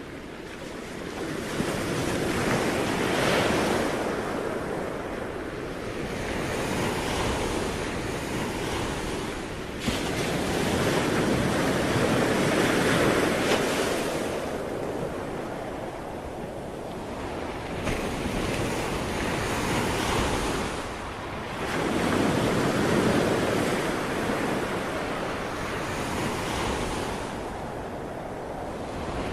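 Sea waves breaking and washing on the shore, the surf swelling and falling away in several surges a few seconds apart, one of them setting in abruptly about a third of the way through.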